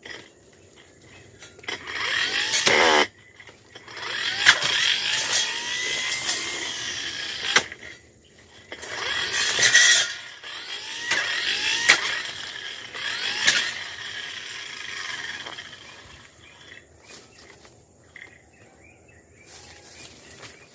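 Tanzu brush cutter slashing through dense undergrowth in loud bursts of a few seconds, with short quieter gaps between them and sharp clicks from stems and debris being struck.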